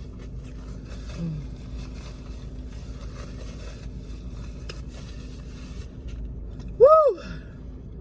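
Faint scraping and handling noises over a low steady hum, then a woman's loud "Woo!" about seven seconds in, rising and then falling in pitch.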